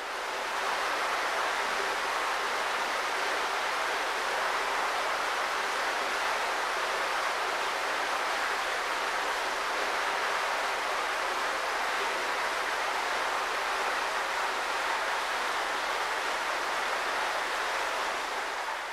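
A steady, loud hiss like rushing water or air that holds unchanged, starting and cutting off abruptly.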